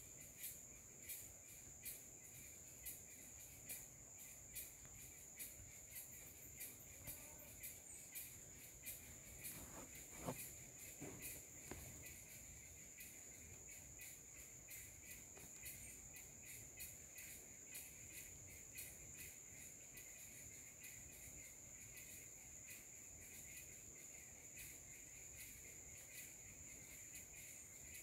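Faint insect chorus: a steady high buzz with a lower buzz under it, and chirps pulsing about once a second in the first third. A few faint short rustles come about ten seconds in.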